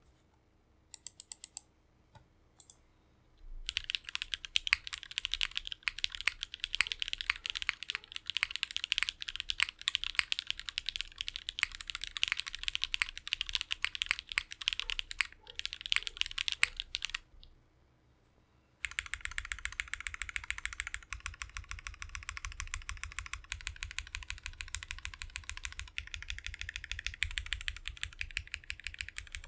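Fast typing on a custom 60% mechanical keyboard with lubed, filmed JWK Black linear switches on an FR4 plate in a gummy O-ring mount, under GMK keycaps. A few single keystrokes come first, then two long runs of rapid key presses with a short pause between them about 17 seconds in.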